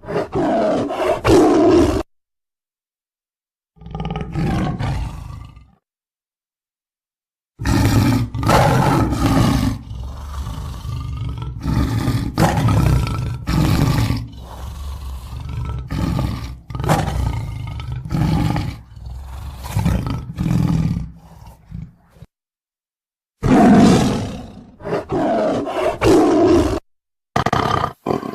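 Tiger growling and roaring in several bouts of deep, rough rumbling, cut apart by moments of complete silence, with the longest stretch of repeated growls running from about 8 to 22 seconds in.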